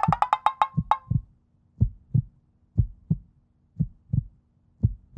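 Suspense sound effect: a quick run of ticks over a short rising tone, then a heartbeat, low thumps in pairs about once a second.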